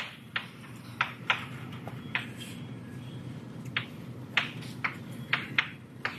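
Writing on a board: about ten sharp, irregularly spaced taps as strokes are put down, over a steady low room hum.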